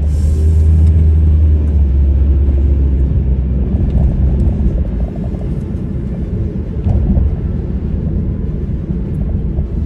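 Low road and engine rumble heard inside a moving car's cabin, heaviest in the first few seconds and then easing.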